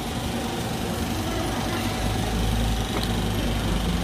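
An engine idling steadily close by, its low rumble growing stronger about halfway through.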